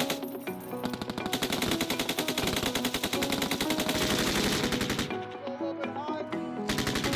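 M249 light machine gun firing 5.56 mm rounds on full automatic in two long bursts of rapid, evenly spaced shots. The first burst runs for about three and a half seconds, and the second starts near the end.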